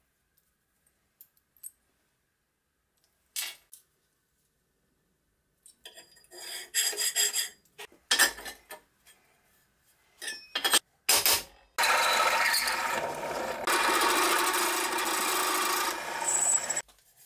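Steel pieces scraped and knocked about on a steel worktable, then a drill press boring into a bent steel bracket: a steady grinding noise with a low motor hum under it for about five seconds, which stops just before the end.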